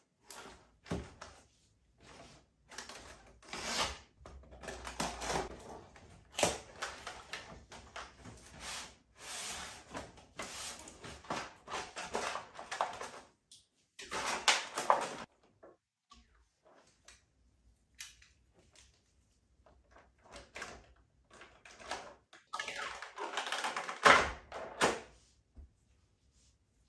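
Cardboard box and clear plastic blister tray of an action figure being opened and handled: irregular scraping, crackling and knocking in short bursts, with a louder knock near the end.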